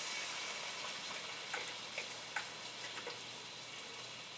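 Food frying in hot oil in a pan: a steady sizzle with a few light clicks scattered through it.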